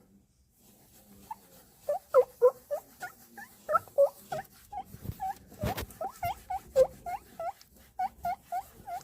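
Short, irregular squeaks from an alcohol wipe being rubbed over a hard surface, a few each second, with a sharp knock or two about halfway through.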